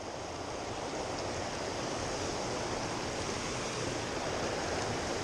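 Steady rushing of water from a small waterfall, an even, unbroken noise.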